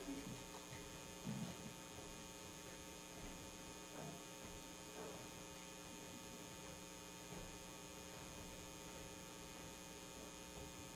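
Low, steady electrical mains hum with several overtones, and a few faint brief sounds over it.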